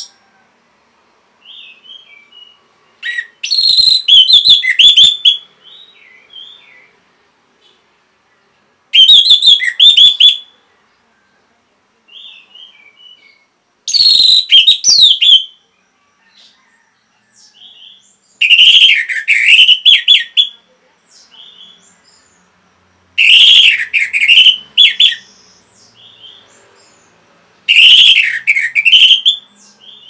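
Orange-headed thrush singing: six loud song phrases, about one every five seconds, each a second or two of fast whistled notes that rise and fall, with soft quiet twitters in between.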